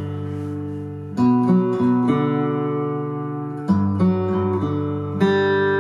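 Recorded acoustic guitar music: strummed chords ringing on, with fresh strums about a second in and again near four and five seconds in.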